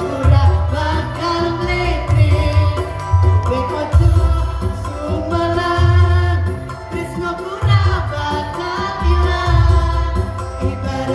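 Mixed choir of men and women singing with electronic keyboard accompaniment and a strong bass line that changes note about every second.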